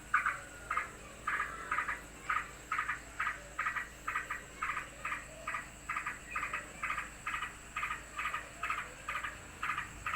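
Yellow-vented bulbul (trucukan) giving short, harsh alarm calls over and over, about two to three a second, agitated by another bird nearby.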